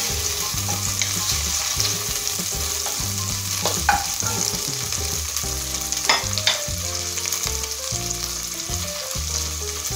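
Small shell-on prawns sizzling in hot olive oil in an enamelled pot while being stirred with a wooden spoon, a steady frying hiss broken by a few sharp clicks.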